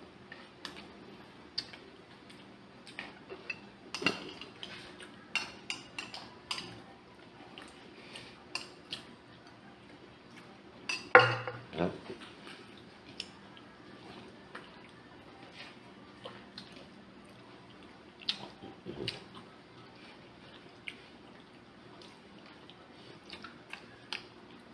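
Spoons clinking and scraping against ceramic bowls and plates while eating, in scattered small clicks, with one louder knock about eleven seconds in.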